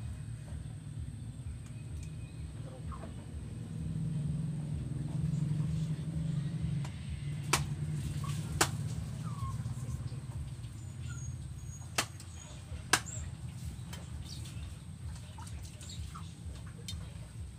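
Four sharp knocks of a knife chopping through fish on a wooden cutting board, over a steady low hum, with a few faint bird chirps.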